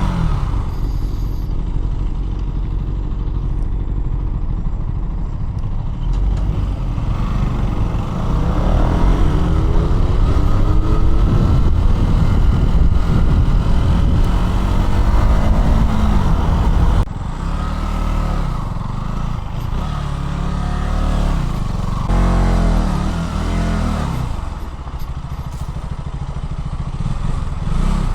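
KTM Duke 200's single-cylinder four-stroke engine riding on the road, its pitch rising and falling repeatedly as it pulls up through the revs. The revs drop suddenly about two-thirds of the way through, and several short rises and falls follow. Wind noise runs underneath.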